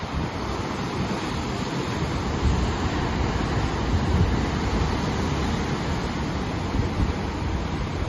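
Heavy ocean surf breaking and churning over shoreline rocks, a continuous rushing wash of whitewater. Wind rumbles on the microphone underneath.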